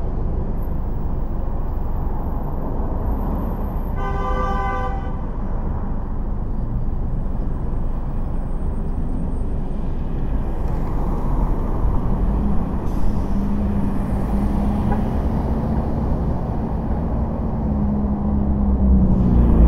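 Steady road and traffic noise of a car driving city streets, with a single car horn honk about four seconds in, lasting about a second. From about twelve seconds a steady low hum joins the traffic noise.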